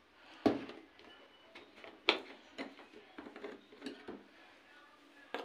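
Plastic laundry-liquid bottle and containers being handled: a few sharp knocks and clicks, the loudest about half a second and two seconds in and another near the end, with lighter taps and rattles between.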